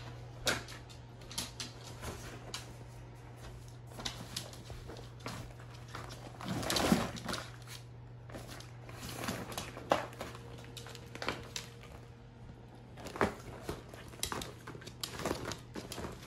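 Plastic of an inflatable tummy-time water mat crinkling and crackling as a West Highland white terrier paws, noses and chews at it: irregular clicks and scrapes, with one louder burst about seven seconds in.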